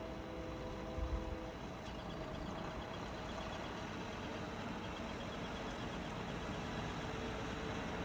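Snowplow dump truck's engine running as the truck pulls away along the street, a steady rumble, with a short loud thump about a second in.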